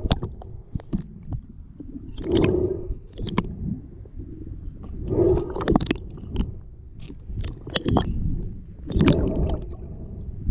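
Muffled underwater water noise picked up by a camera in its housing while a swimmer moves with a speargun. The sound swells in bubbling, gurgling surges about every three seconds, with scattered sharp clicks in between.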